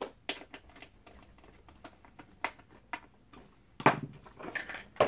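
Light scattered clicks of a screw being turned back in to fix the plastic handle of a Hoover Smart upright vacuum cleaner, with a louder plastic knock near four seconds in.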